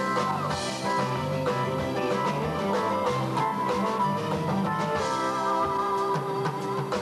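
Live band playing an instrumental passage: electric guitar over bass and drums.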